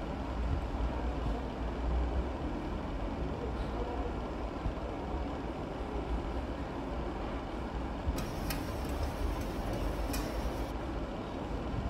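Steady low rumbling background noise, with a few faint knife clicks near the end as a chef's knife slices a small white vegetable into rounds on a plastic cutting board.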